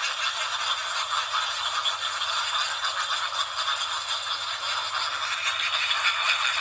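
Steady, dense scratchy scraping noise that cuts off suddenly at the end.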